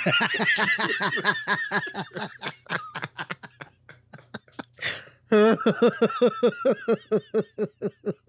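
Two men laughing hard in quick, pulsing bursts. The first run of laughter fades out about four seconds in, and a second loud fit of laughter starts a little after five seconds.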